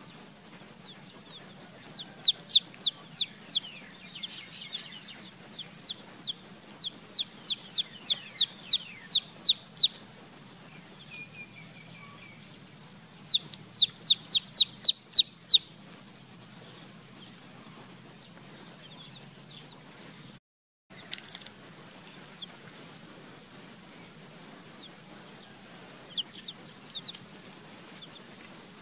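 Baby chicks peeping: runs of high, quick peeps, a few a second, in a long run near the start and a shorter, louder run a little before the middle, then fainter scattered peeps. The sound cuts out for a moment just past the middle.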